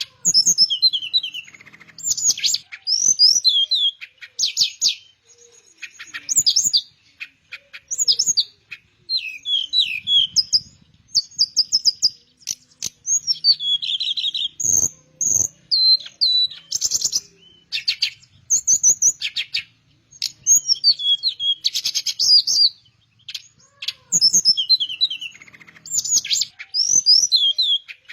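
Teledekan melayu, a small songbird sold as a flycatcher (sikatan), singing vigorously: fast, varied high phrases of chirps, trills and whistles sliding up and down, given in quick bursts with short pauses between them.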